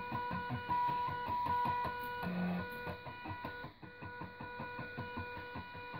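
Stepper motors of DVD-drive sleds driving a pen plotter as it draws: a steady high whine in several pitches over rapid ticking. The whine stops and restarts as the pen changes direction, with a brief change about two seconds in.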